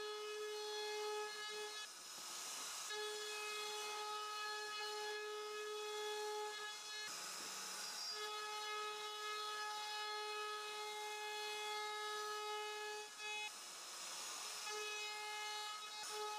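CNC router spindle carving a wooden board, running with a steady high-pitched whine. Three times the whine breaks into about a second of rasping noise.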